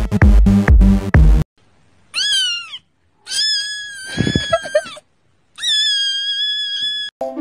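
An electronic dance beat with a drum machine stops abruptly. Then a kitten meows three times: one short, bending meow and then two long, drawn-out ones.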